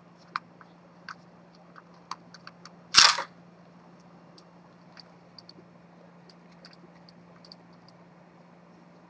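Silver hunter-case pocket watch's hinged front cover snapping shut about three seconds in, one sharp metallic snap. Lighter clicks and taps come from handling the metal case before and after it.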